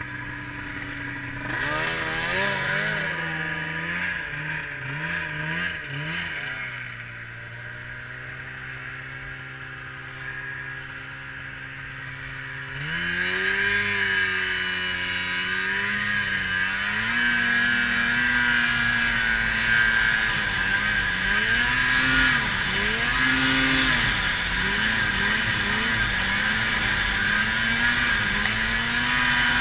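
Arctic Cat 700 two-stroke snowmobile engine idling, blipped up and down a few times, then opened up about thirteen seconds in as the sled pulls away. It keeps running under load, the throttle rising and falling every second or two.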